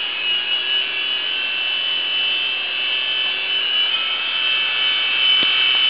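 Small indoor radio-controlled coaxial helicopter hovering: its little electric motors and twin rotors make a steady high-pitched whine, the pitch wavering slightly about four seconds in.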